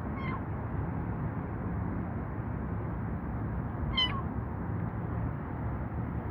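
Tabby kitten mewing twice, two short high calls about four seconds apart, over a steady low background rumble.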